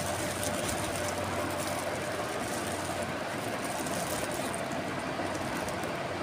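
Steady background rushing noise with a low hum and a faint high whine. Over it comes light crinkling of the paper wrapper around a shawarma as it is handled.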